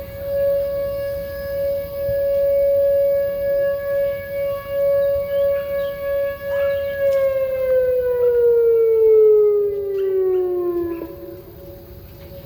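Whelen WPS-2910 electronic outdoor warning siren holding one steady wail that swells and fades in loudness as its speaker array rotates. About seven seconds in it winds down, falling steadily in pitch, then cuts off. A fainter siren further off keeps sounding at the higher pitch.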